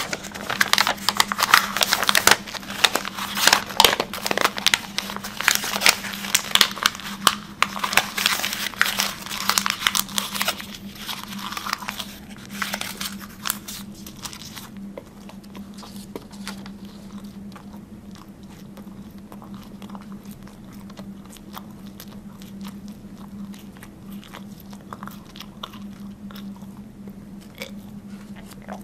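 A mouth close to the microphone chewing and crunching something, with crinkling, crackly clicks. The clicks are dense for about the first half, then thin out to occasional small mouth clicks. A steady low hum runs underneath throughout.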